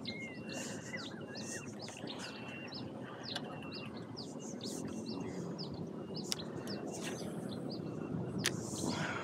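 Songbirds chirping: many short, quick down-sweeping calls and a repeated thin high note, over a steady background hiss. Three sharp clicks come about a third of the way in, near the middle and near the end.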